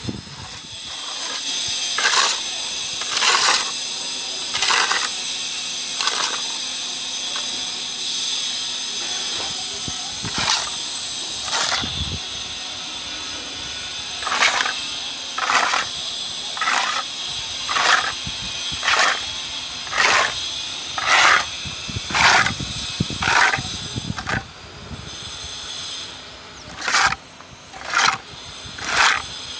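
A metal plastering float scraping across wet textured wall coating in repeated strokes, about one a second, with a couple of short pauses, over a steady high-pitched hiss.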